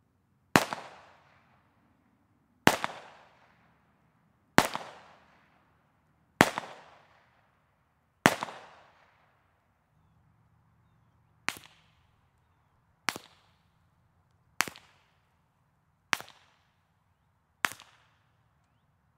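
Suppressed .45 ACP pistol shots through a Bowers ASP45 suppressor shot wet (with liquid in the can). The first five come from a Remington 1911 and are louder reports about two seconds apart, each with a long trailing echo. After a short pause, five quieter, shorter reports follow about one and a half seconds apart.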